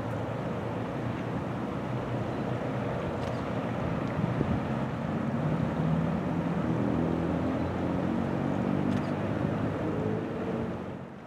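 Wind buffeting the microphone over a steady low rumble, with a low engine hum from a passing vessel rising about halfway through and fading near the end.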